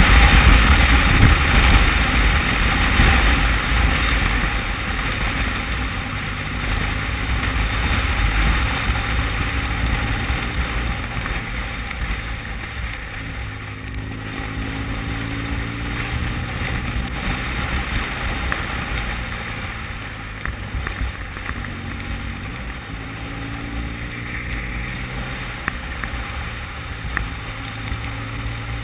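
Motorcycle at road speed: wind rushing over the bike-mounted camera's microphone, with the engine's steady note underneath. The wind is loudest at the start and eases off over the first dozen seconds.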